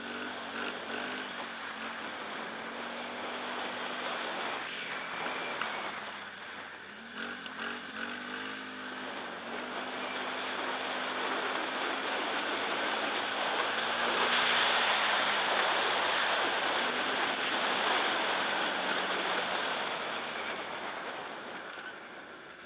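Sport quad (ATV) engine running while riding, its pitch rising and falling with the throttle, under a steady rush of wind on the microphone and track noise that grows loudest about two-thirds of the way through.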